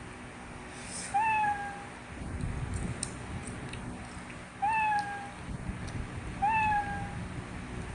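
Three short pitched animal calls, each about half a second long with a quick rise in pitch, a few seconds apart, over a faint low background.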